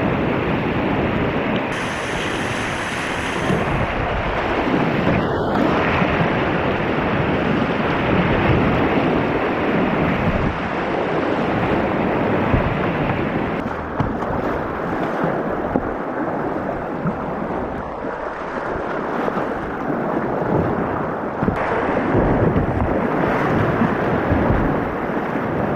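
Steady loud rush of whitewater rapids in a creek.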